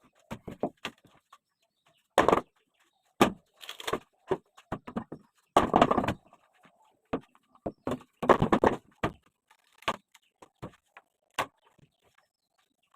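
Shuttering plywood being stripped off concrete formwork: irregular knocks and bangs of wood and metal, with a few longer clattering, scraping bursts as boards come loose.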